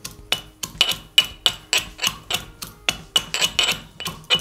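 Steel pestle pounding ginger and garlic in a steel mortar: a steady run of metallic strikes, about four a second, each ringing briefly.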